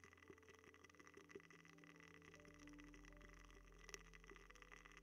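Faint, soft tapping and scratching close to the microphone, over a quiet steady background hum.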